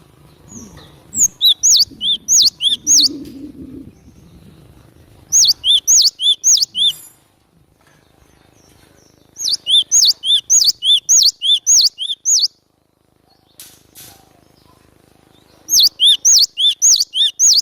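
Cinereous tit (glatik batu) singing: loud bouts of rapid, repeated two-note phrases, a high note then a lower one, about three or four a second. There are four bouts with short pauses between them.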